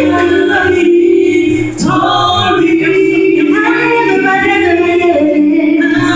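A cappella gospel vocal group of mixed male and female voices singing in close harmony through microphones, holding long chords with a short break about two seconds in.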